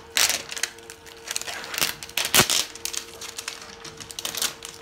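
Plastic toy packaging crinkling and crackling as it is handled and pulled open, in irregular bursts, the sharpest about two and a half seconds in.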